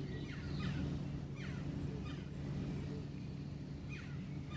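A steady low engine hum, as of a vehicle running nearby, with a few short falling bird chirps over it.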